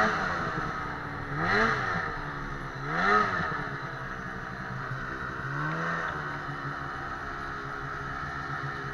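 Ski-Doo 800R two-stroke snowmobile engine, heard from the rider's seat, blipped up and dropping back twice in quick succession, with a smaller blip near six seconds in, then running steadily at low revs.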